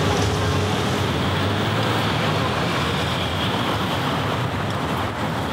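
Steady city street traffic noise from passing road vehicles.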